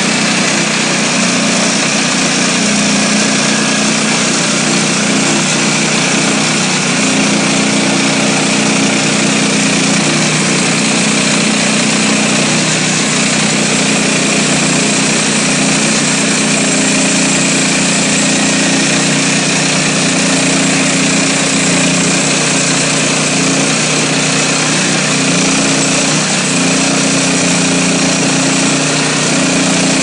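Woodland Mills HM126 portable bandsaw mill's gasoline engine running steadily under load while the band blade cuts through a large black walnut log.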